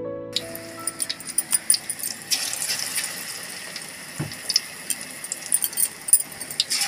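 Cauliflower pakoras deep-frying in hot oil in a kadai: a steady sizzle full of sharp crackles and pops.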